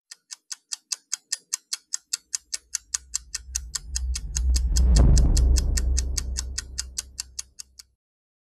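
Intro sound effects: a steady clock-like ticking at about five ticks a second, with a deep low swell that builds from about two seconds in, peaks near the middle and fades. The ticking stops shortly before the end.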